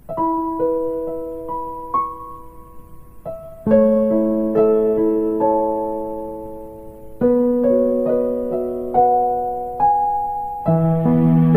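Slow solo piano music: soft, sustained chords and single notes played at a gentle pace, each left to ring and fade.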